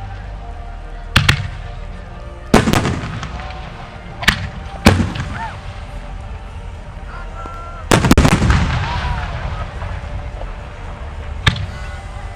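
Aerial firework shells bursting: a series of sharp bangs, each trailing off in a long echoing rumble, with several going off in quick succession about eight seconds in.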